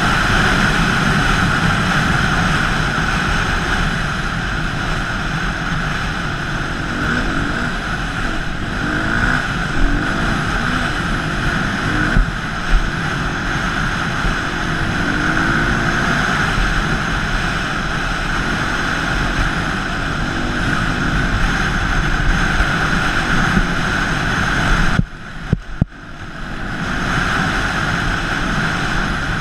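Off-road motorcycle engine running under throttle, with a steady rush of wind over a helmet-mounted camera; the engine pitch rises and falls with the throttle. About 25 seconds in the sound drops away suddenly for about a second, then builds back up.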